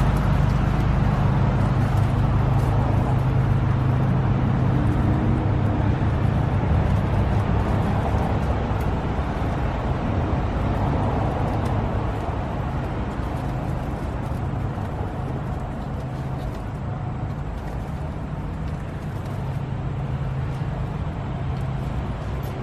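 A steady low mechanical drone, like a running motor or engine, easing slightly quieter through the span.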